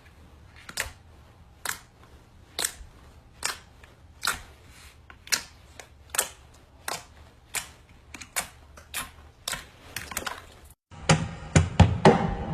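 Slime being squeezed and pressed, giving a sharp pop or click a little more than once a second as air pockets burst. Strummed acoustic guitar music comes in near the end.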